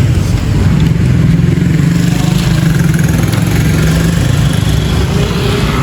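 A motor vehicle engine running steadily, a low rumble.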